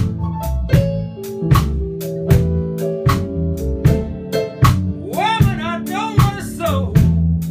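Live band playing a country tune: electric guitar and electric bass over a drum kit keeping a steady beat. Sliding, bending high notes come in about five seconds in.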